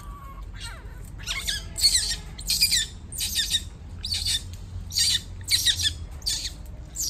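Baby monkey screaming: a run of about nine short, shrill, high-pitched screams, one every half second to a second. These are the distress cries of a young monkey left to climb on its own.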